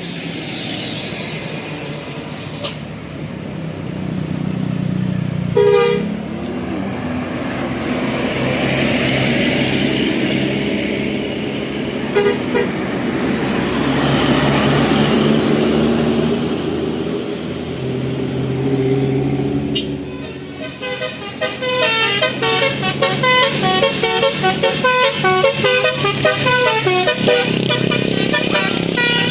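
A bus's multi-tone Basuri 'telolet' musical air horn. After a brief toot about six seconds in and a stretch of engine and road noise that swells and fades, it plays a fast melody of short, chopped notes from about two-thirds of the way through.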